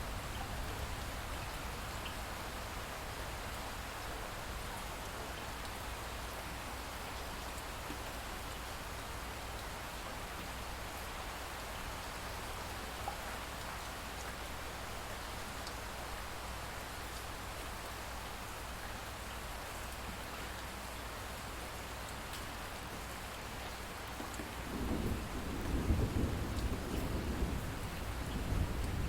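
Steady light rain with scattered drips after a thunderstorm. About 25 seconds in, a low rumble of distant thunder rises under the rain.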